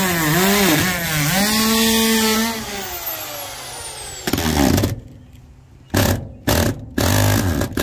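Power drill motor running up, held at speed for about a second, then winding down with a slowly falling whine. It is followed by one short burst and then several more quick trigger bursts, drilling out a hole through the RV's metal wall.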